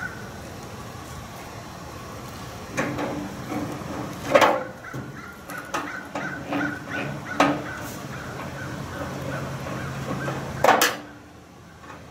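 Knocks and clanks on a microwave oven's sheet-metal case as its cover is screwed back down, a handful of sharp strikes with the loudest about four seconds in and another near the end.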